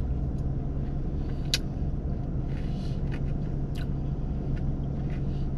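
Steady low hum of a car idling, heard inside the cabin, with a few faint clicks and smacks of someone eating ice cream from a cup with a spoon.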